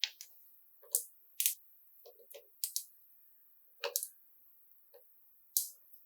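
Marbles clacking and bumping down a wooden marble run: about a dozen sharp, irregular clicks, some in quick pairs.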